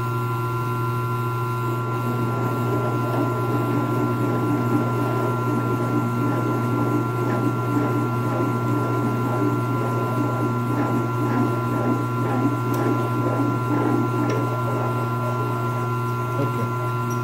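Milling machine motor running steadily with a hum and a high whine, as a 9/16-inch drill bit bores out the hole in a metal dimple washer. An uneven grinding chatter of the bit cutting starts about two seconds in and eases off near the end.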